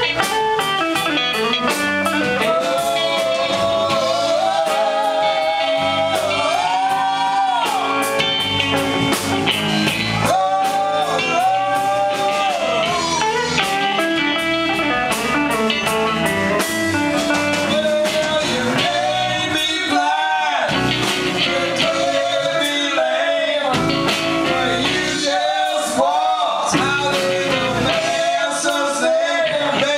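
Live blues band playing: two women singing over electric guitars, bass and drums.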